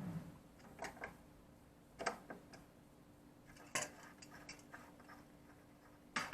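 Channel-lock pliers clicking and knocking against the Delta faucet's cartridge cap as it is loosened and unscrewed: a few separate sharp clicks spread out, with the loudest knock near the end.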